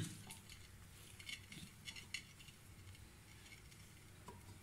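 Faint, scattered clicks and rustles of raw diced turnip pieces knocking together and against a clay pot as a hand presses them level.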